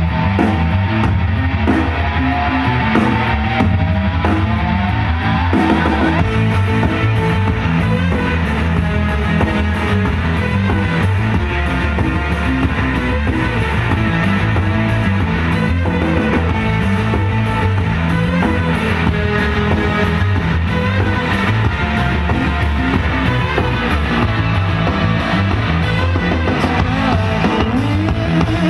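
Rock music with guitar and drums played loudly through a Fenda F&D F550X 2.1 speaker system, its subwoofer giving strong bass.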